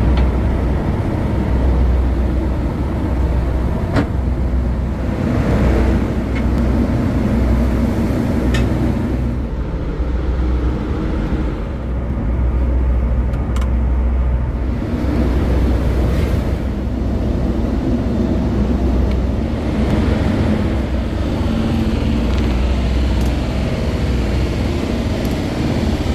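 Steady low rumble of a ship's engines and deck machinery, with a few short clicks now and then.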